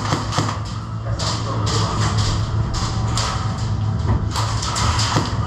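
Music with a steady low bass note, broken by sharp taps about every half second.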